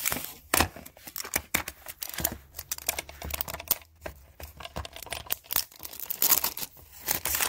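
Stiff plastic packaging crinkling and crackling as it is handled and pulled open, with irregular clicks and rustles.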